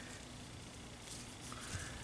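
Quiet workbench handling: faint rustle of gloved hands on a rifle barrel, with a small soft tap near the end.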